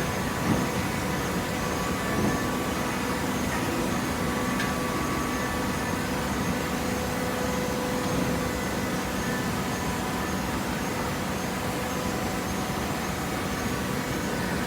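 Steady machine hum of a hydraulic paper baler running, with a few faint steady tones and a couple of light knocks in the first few seconds.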